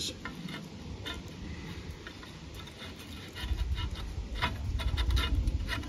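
Scattered light clicks and taps as a homemade steel black-pipe T-handle tool is handled, with a low rumble setting in about halfway through.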